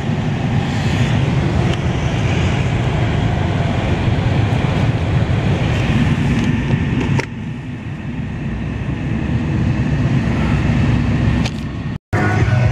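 Vehicle engine and road noise heard from inside a moving vehicle, a steady low rumble that eases off about seven seconds in and then builds again.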